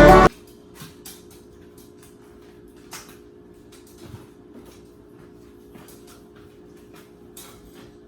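Background music cuts off just after the start, followed by faint kitchen handling noise: a few small knocks and clicks, like cupboards and utensils being handled, over a low steady hum.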